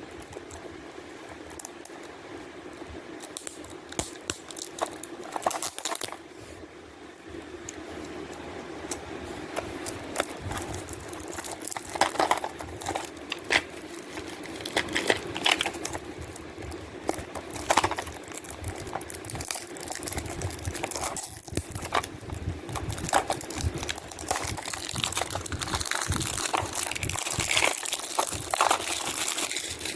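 Plastic shrink wrap being picked at and torn off a cassette tape case: irregular crinkling and crackling, busier and louder from about ten seconds in, over a steady low hum.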